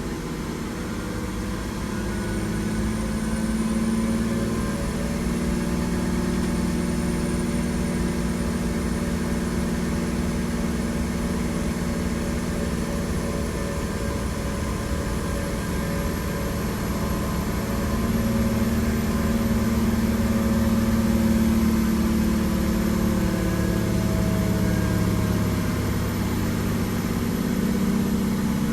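Cat C9 inline-six diesel in a motorhome running under load on a chassis dynamometer during a power pull, with the tuner's performance mode loaded. The engine runs steadily and gets louder a few seconds in and again later, with a faint high whine slowly rising in pitch through most of the run.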